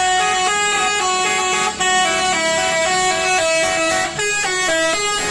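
Telolet-style bus horn playing a quick melody: a continuous run of short horn notes stepping up and down in pitch.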